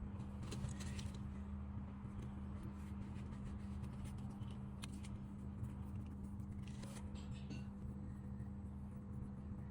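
A steady low hum, with a few faint clicks and scrapes over it.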